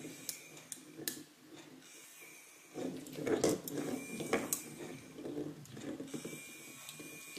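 A small battery-powered cat-toy ball rolling on a tile floor, its motor whirring in spurts and its shell ticking and clicking against the tiles.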